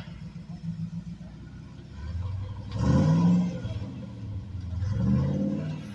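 Off-road vehicle's engine revving in two surges while crawling over the rock garden, the louder one about three seconds in and a second near the end.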